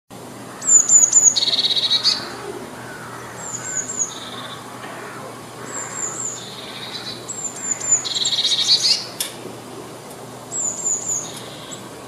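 Eurasian blue tit singing: five phrases every two to three seconds, each a few high, thin falling notes followed by a lower, fast trill.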